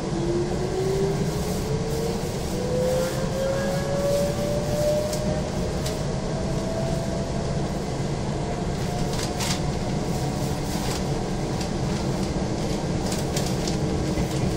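Izukyu 2100 series electric train pulling away from a station, heard from inside the passenger car: a whine rises steadily in pitch for about eight seconds as the train gathers speed, then levels off over a steady running rumble. A few sharp clicks come about two-thirds of the way in.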